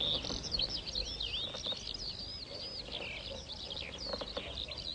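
Many small birds singing at once, a dense chorus of quick chirps and short rising and falling whistles that overlap throughout.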